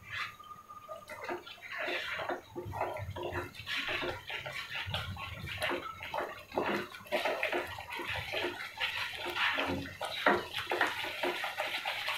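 Spatula stirring and scraping a thick masala paste around a metal pan as it fries in oil: quick, irregular scrapes over a soft sizzle.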